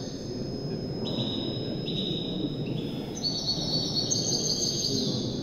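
A caged songbird singing a string of high trilled phrases, each about a second long and following close on the last, over steady low room noise.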